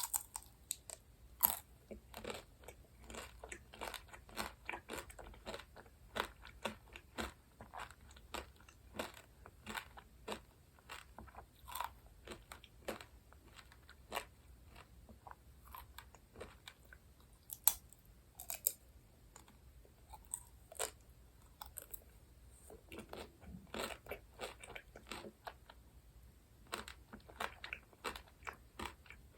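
Close-miked eating of sweets: repeated crunchy bites and chewing, with many irregular sharp crackles.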